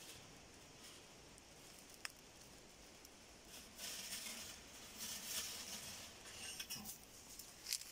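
Footsteps crunching through dry leaf litter, faint at first and louder from about halfway in, with a single sharp click about two seconds in.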